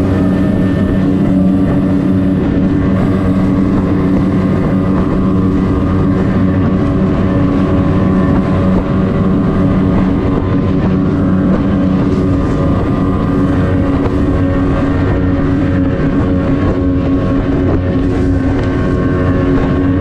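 Short-shaft 50 hp two-stroke Mercury outboard running steadily under way on a small RIB, its pitch holding even throughout.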